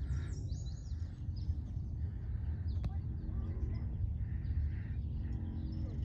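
Birds chirping in short, scattered calls over a steady low rumble of wind on the microphone, with a single click about halfway through.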